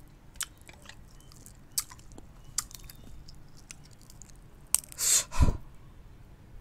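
Brittle dalgona (sugar and baking-soda candy) being picked at and snapped with the fingers: several small sharp cracks and clicks spread through, with a last crack just before five seconds in. It is followed by a loud breathy gasp as a piece breaks off.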